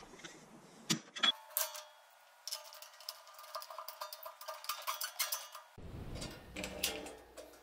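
A few sharp clicks from a hand rivet tool setting rivets in the bandsaw's guide-post clamp. These are followed by a run of light metallic clicks and clinks as the hex-stock guide post is fitted into that clamp and its knob handled.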